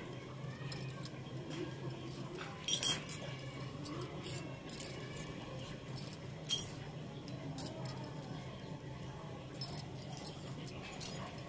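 Small stainless-steel miniature toy utensils and dishes clinking and jangling as they are handled and set down on a concrete floor, in scattered sharp clinks, the loudest about 3 and 6.5 seconds in.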